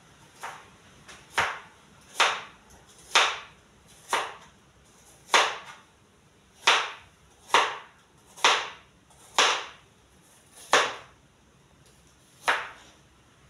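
Kitchen knife chopping on a plastic cutting board: about a dozen single, unhurried strokes roughly a second apart.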